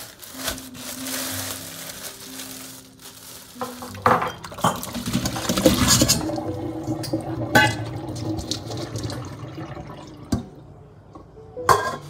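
Tap water running into a perforated stainless steel colander in a steel sink. From about four seconds in, fresh cherries are poured in and tumble against the metal with a run of knocks and clinks.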